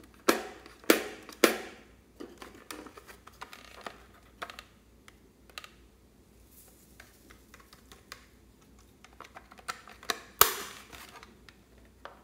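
Hard plastic toy guitar being handled and turned over: three sharp knocks in the first second and a half, then scattered light plastic clicks and taps, and another loud knock about ten seconds in.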